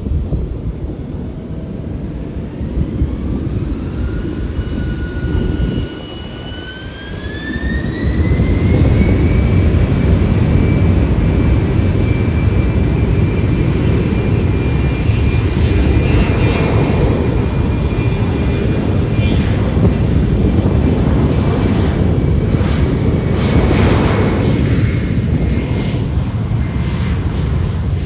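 Jet airliner's turbofan engines spooling up: a whine rises, holds briefly and rises again over the first several seconds, then a loud, steady roar with a held whine follows, typical of engines run up to takeoff power.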